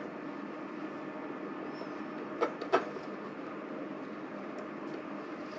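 Steady low machine hum from a powered-on printer and its spinning take-up motor, with two light clicks about two and a half seconds in.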